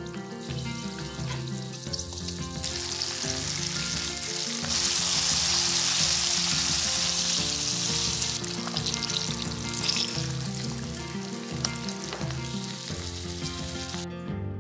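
Cornstarch-coated galunggong (round scad) frying in a pan of oil: a steady sizzle that swells loudest for a few seconds in the middle, then cuts off abruptly near the end. Background music with a steady beat plays under it.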